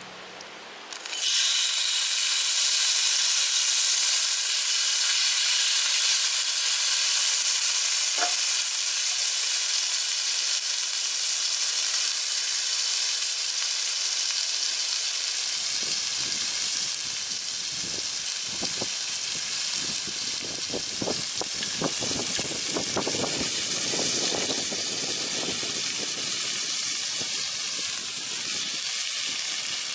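Food sizzling in a hot pan, starting suddenly about a second in, with crackling and popping from about halfway on.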